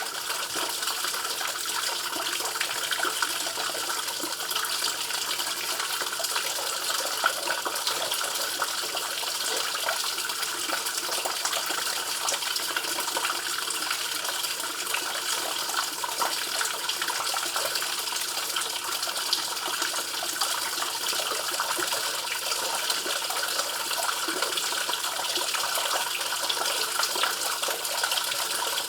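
Running water: a steady, unbroken rush with small splashes throughout.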